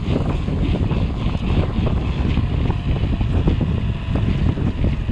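Wind buffeting the microphone of a handlebar-mounted camera on a mountain bike riding a rough dirt track, with a steady low rumble and frequent small rattles and knocks from the bike over the bumps.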